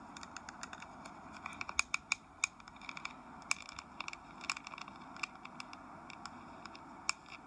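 Long fingernails tapping and scratching on a small round metal compact close to the microphone: irregular sharp clicks, several a second, over a soft scratchy hiss.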